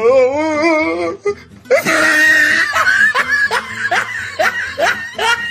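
Laughter over music: a wavering laugh in the first second, then a string of short, rhythmic laughs about two or three a second.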